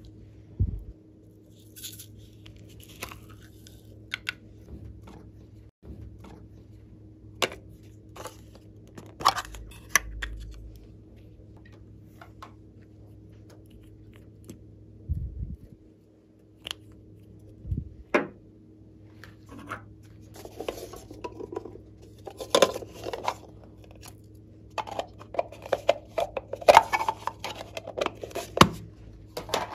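Hands handling small plastic toy containers: scattered clicks, taps and rattles of hard plastic, growing busier and denser over the last several seconds, over a faint steady hum.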